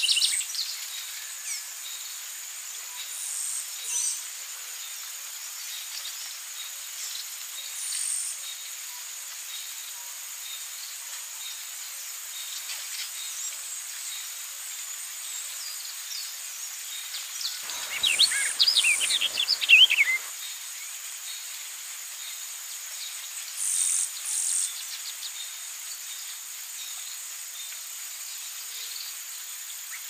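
Birds calling over a steady, high-pitched insect drone: short calls here and there, and a loud burst of rapid chirping for about two seconds past the middle.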